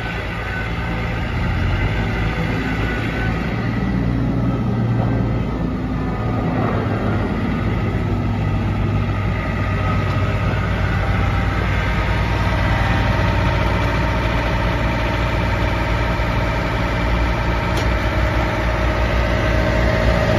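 John Deere 4610 compact tractor's 42 hp Yanmar diesel engine running steadily as the tractor moves about, louder and clearer near the end.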